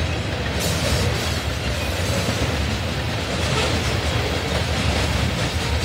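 Freight train of covered hopper cars rolling past, a steady noise of steel wheels running on the rails.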